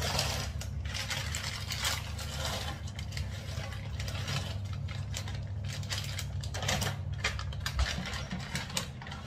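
Frozen mixed vegetables being shaken out of a crinkling plastic packet into a bowl, a dense rattling clatter of small hard pieces.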